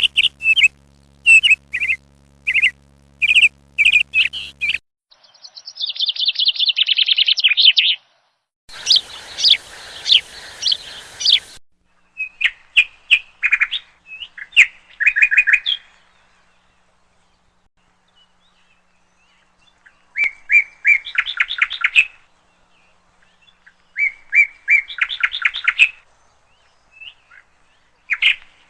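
Bird calls: quick runs of short, high chattering notes in bursts of one to three seconds, with short pauses and a near-quiet stretch about two thirds of the way in.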